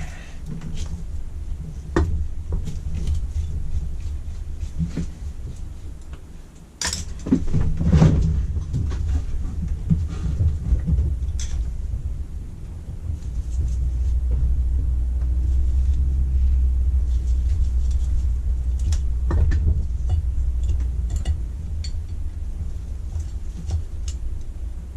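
Scattered clicks and knocks of metal parts and tools being handled as a Weber 32 DMTR carburettor's top cover is unscrewed and lifted. A steady low rumble runs underneath and grows louder for several seconds in the second half.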